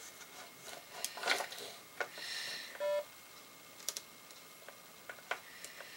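Scattered light taps and clicks of typing, with a short hiss a little after two seconds and a brief electronic beep just before three seconds in.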